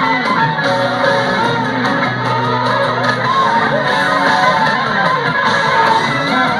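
Live rock band playing loudly, led by electric guitars whose lines bend up and down in pitch over bass and drums, with a few shouts from the crowd, as picked up by a phone's microphone.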